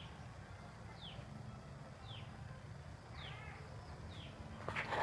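A bird repeating a short downward-sweeping call about once a second, over a steady low rumble, with a few clicks near the end.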